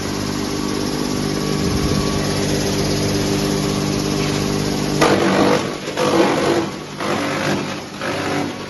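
DK-50 disc-and-drum wood crusher running with a steady hum. About five seconds in, loud, irregular, rough crushing noise surges in, the sound of wood being fed through and chipped.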